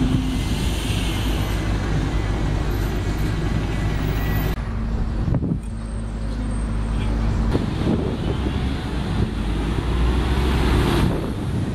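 Single-deck diesel buses running, first a steady idling engine drone, then road traffic as a bus drives past, louder near the end. The sound changes abruptly a few times as the takes cut.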